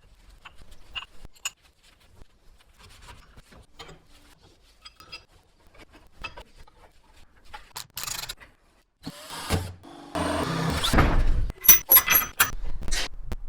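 Hand work on vice parts with tools: scattered light clicks and taps, then from about nine seconds in a louder scraping with several sharp knocks near the end.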